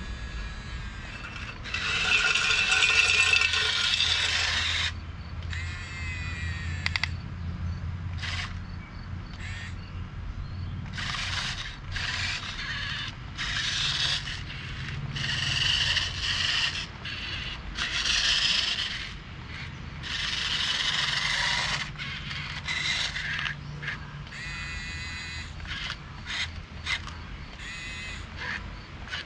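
Hunia 1567 RC wheel loader's small electric motors whining through plastic gearboxes as it drives and works its bucket arm. The motors start and stop in about a dozen short bursts, the longest and loudest near the start.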